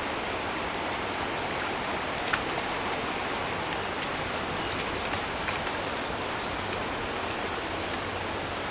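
Trout stream water running steadily, with a few faint clicks in the middle.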